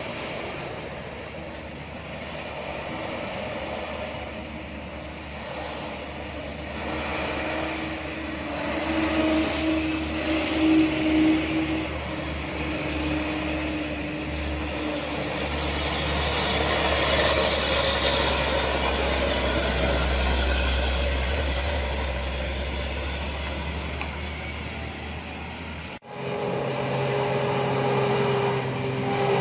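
Heavy diesel trucks labouring up a steep hairpin climb, with engines rising and falling as vehicles pass, loudest about ten seconds in. After a cut near the end, a cement mixer truck's diesel engine pulls uphill with a steady note.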